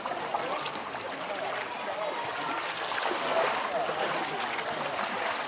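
Floodwater rushing and splashing steadily, with faint voices in the background.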